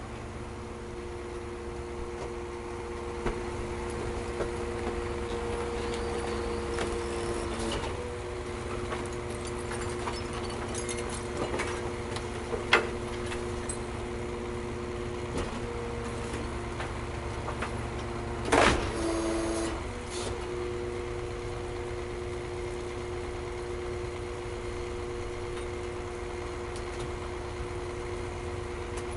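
Garbage truck running in place, its engine idling steadily with a low rumble and a steady hum, while the truck's working parts give occasional sharp knocks and clanks. The loudest are a sharp knock about thirteen seconds in and a short, loud burst of noise at about nineteen seconds.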